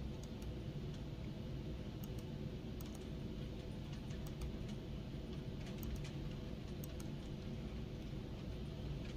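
Irregular clicks of a computer mouse and keyboard, roughly one or two a second, over a steady low hum.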